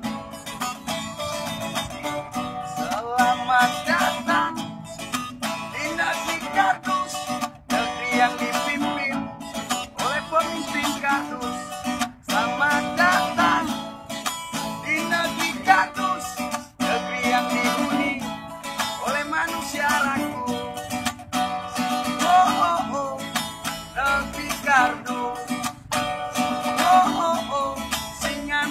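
A busker's acoustic guitar being strummed and picked in a continuous accompaniment, with a wavering melody line over the chords.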